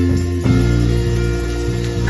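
Live church band playing instrumental music: electric bass and guitar holding notes over drums. The bass changes note about half a second in, with light cymbal taps.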